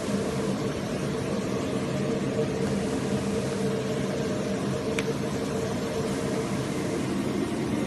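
Flatbed CNC digital cutter running with a steady whir and low hum, the sound of its vacuum hold-down table; a single light click about five seconds in.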